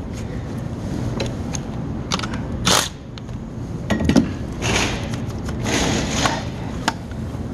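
A car battery's positive terminal clamp being wiggled left and right on its post after its nut is loosened: scattered metal clicks at first, then several scraping bursts as it works free.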